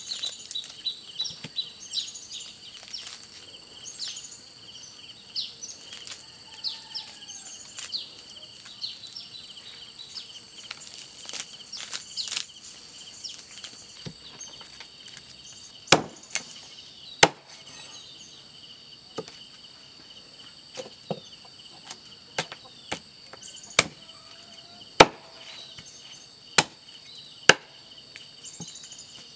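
Cleaver chopping roasted goat meat on a wooden stump chopping block: about ten sharp strikes at uneven intervals in the second half, over steady high-pitched insect chirring. Before that, lighter crackling and snapping as the roast carcass is pulled apart by hand.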